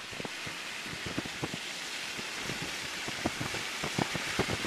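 Wind buffeting the microphone in a snowstorm: a steady hiss broken by frequent irregular low thumps.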